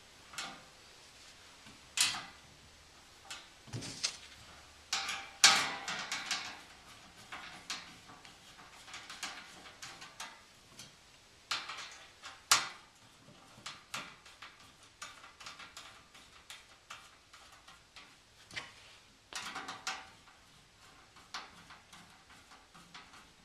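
Metal cargo barrier parts clanking and clicking as a side wing is fitted to the main grid and bolted on: irregular sharp knocks and taps with short pauses between, the loudest a little over five seconds in and again about twelve seconds in.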